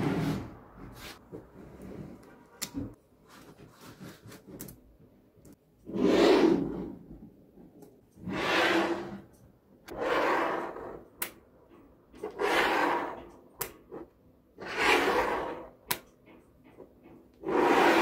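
Small magnetic balls being handled: scattered sharp clicks and about six short rubbing swishes, each under a second, as magnet-ball pieces are slid and pressed on the tabletop.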